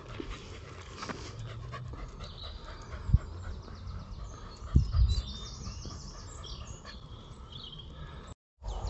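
A dog panting, with small birds chirping repeatedly through the middle and a couple of loud low thumps around the third and fifth seconds.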